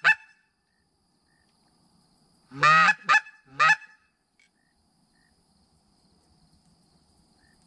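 Handheld goose call blown in short honks imitating geese: one honk right at the start, then after a pause three honks about half a second apart, the first the longest.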